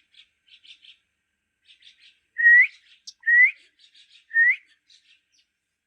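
Pet green parrot making three short rising whistles about a second apart, with soft chirps and clicks between them.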